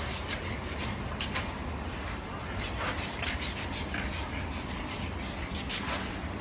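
A pug in a wheeled dog wheelchair moving over a hard floor: irregular light clicks and taps from its paws and the cart, over a steady low hum.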